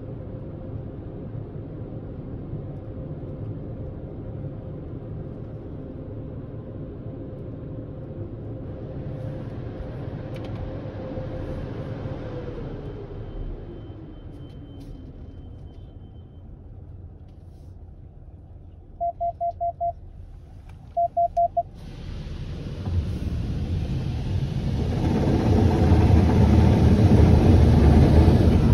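Car engine idling while a car-wash bay door opens, with a steady hum that drops in pitch and fades. Two quick runs of loud electronic beeps follow, then the Belanger Saber touch-free wash's high-pressure spray starts hissing and builds to a loud drumming of water on the car.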